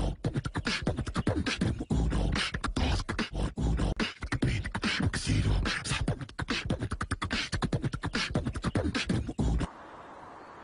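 Beatboxing: a voice making fast percussive kick- and snare-like sounds in a dense rhythm. It stops abruptly near the end, leaving only faint hiss.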